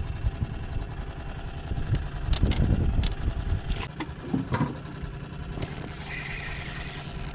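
Outboard motor idling steadily, with a few sharp knocks and clicks about two to five seconds in and a hiss near the end.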